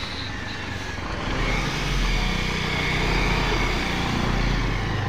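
HRTC bus's diesel engine running as the bus drives past and pulls away along a dirt road, growing louder about a second and a half in.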